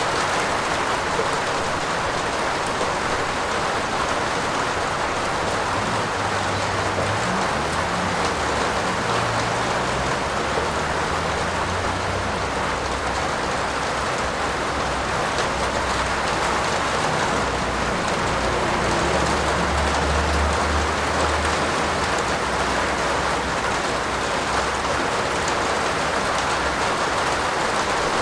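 Steady heavy rain falling, a dense even hiss. A low rumble comes in underneath about a quarter of the way in and fades out about three quarters of the way through, swelling slightly after the middle.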